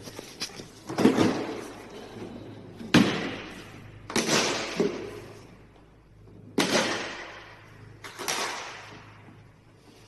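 Five sharp clunks, irregularly one to two and a half seconds apart, each dying away quickly.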